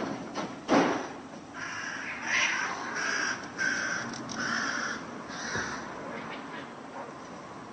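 Crow cawing, about six calls in a row. A loud sudden rasping noise comes just before the calls, a second or so in.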